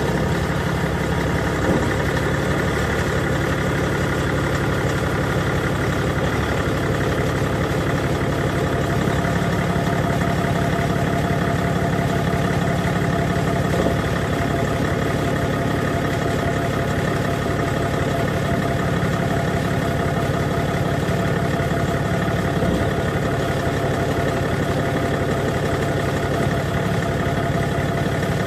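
BMW E61 525d's straight-six diesel idling steadily just after a start, with a rattle that the owner suspects comes from the dual-mass flywheel.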